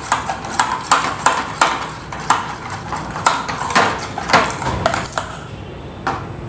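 Metal spoon beating ghee, curd, sugar and baking soda in a stainless steel bowl, clacking against the bowl about three times a second as the mixture is whipped frothy, then stopping about five seconds in.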